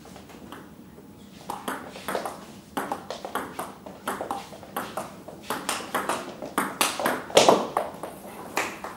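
Table tennis rally: the ball clicking back and forth off the paddles and the table, about three sharp taps a second, starting about a second and a half in. The loudest hits come about seven seconds in, just before the rally ends.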